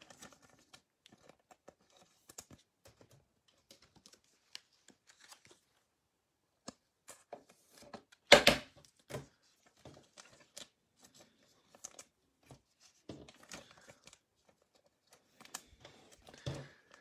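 Trading cards and their cardboard packaging being handled on a table: soft slides, rustles and light clicks, with one loud knock about eight seconds in.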